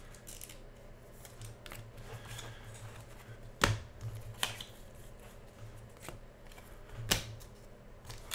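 A stack of trading cards being handled and flipped through, with a few sharp clicks. The two loudest come about three and a half and seven seconds in.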